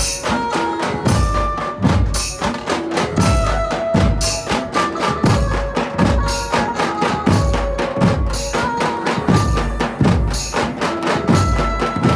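Dhumal band playing a qawwali tune: large dhumal drums beat a steady rhythm of deep strokes under a held melody line on an Indian banjo, with no singing.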